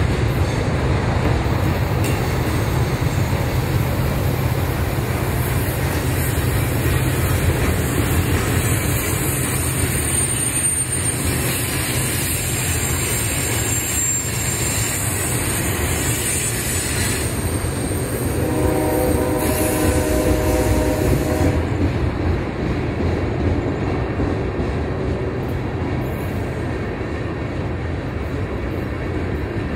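Freight train cars rolling past on a curve: a steady rumble and clatter of wheels on rail, with a high wheel squeal through the first half. A chord of several steady tones sounds for about three seconds a little past the middle.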